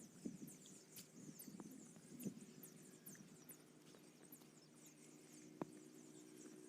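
Near silence: faint outdoor ambience with scattered soft clicks and many faint high chirps.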